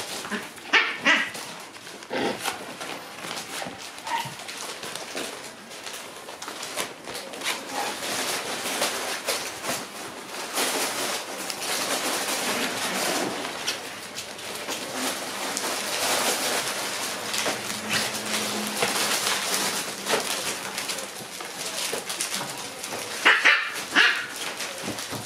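Shiba Inu puppies playing: a few sharp yips and small barks about a second in and again near the end, over continual scuffling and rustling as they wrestle and push about a fabric pop-up play tunnel.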